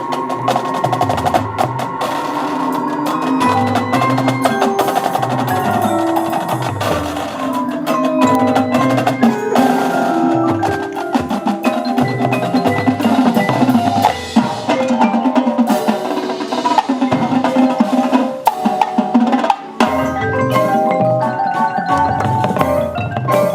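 High school marching band playing its field show, with mallet percussion such as marimba and glockenspiel and the drum line's snare drums prominent.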